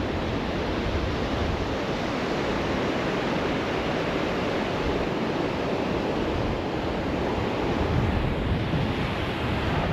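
Sea waves washing steadily onto a beach, with wind buffeting the microphone.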